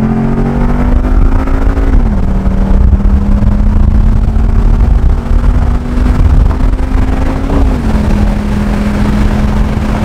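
2016 Ford Mustang GT's 5.0 L V8 through an aftermarket cat-back exhaust, heard from inside the cabin, pulling under acceleration with a deep, loud note. Its pitch climbs slowly, then drops as the automatic transmission upshifts about two seconds in and again near eight seconds in.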